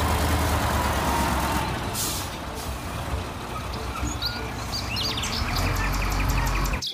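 Concrete mixer trucks' diesel engines running as a mixer drives past, with a short burst of air-brake hiss about two seconds in.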